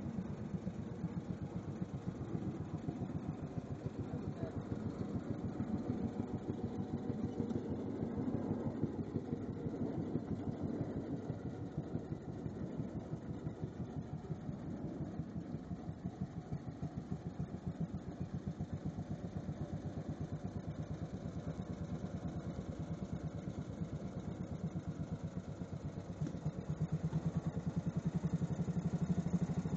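British Anzani Iron Horse walking tractor's engine running steadily while standing, an even, rapid string of firing beats, running well; it gets a little louder near the end.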